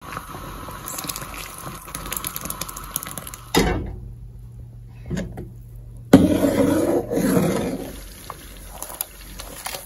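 Fruit jam mixture boiling and bubbling in a cooking pot, with liquid being poured in. The sound changes abruptly at cuts about three and a half and six seconds in, and is loudest just after the second cut.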